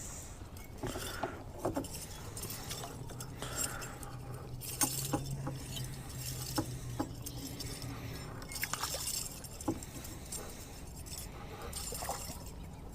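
Scattered light clicks and clinks of fishing tackle being handled while a fish is landed, with a faint low hum for a few seconds in the middle.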